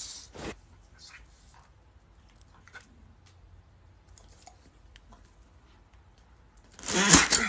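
Faint scattered clicks, then near the end a loud, short, breathy burst: a pet sneezing.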